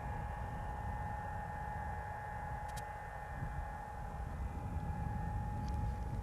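Wind rumbling on the microphone, with a steady high-pitched whine underneath and one faint tick about three seconds in.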